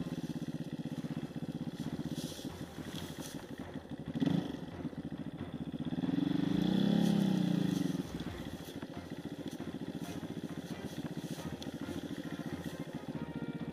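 Enduro dirt bike engine running at low revs, with a sharp knock about four seconds in and, about halfway through, a louder rev that rises and falls over a couple of seconds.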